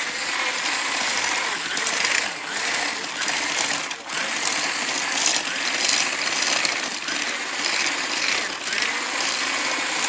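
Corded handheld electric blender running steadily, its motor whirring as the blade churns through dry bath bomb powder in a bowl, the loudness rising and dipping a little as it is worked through the mix.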